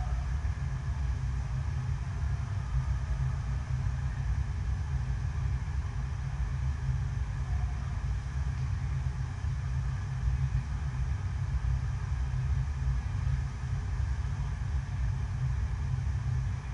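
Steady deep rumble of water rushing up the surface of an indoor artificial surf wave.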